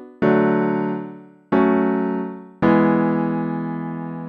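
Sampled piano-like keyboard chords from an iPad music app, triggered by tapping its on-screen pads: three chords struck about a second apart, each ringing out and dying away, the last one held longest.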